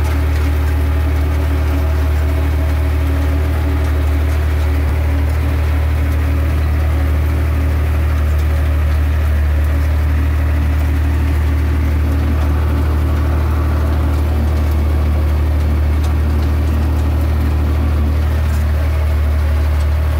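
Tractor engine running steadily, heard from inside the cab: a constant low drone.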